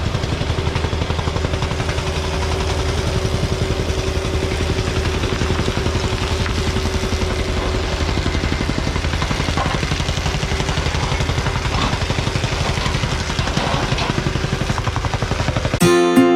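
Construction machinery engine running steadily at a constant speed, with a light clatter. Acoustic guitar music starts just before the end.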